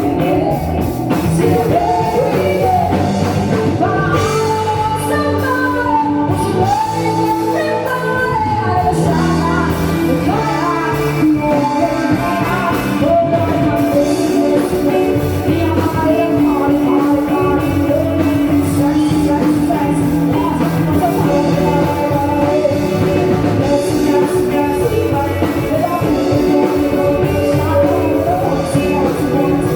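Rock and roll song with a singing voice over a full band, playing steadily throughout.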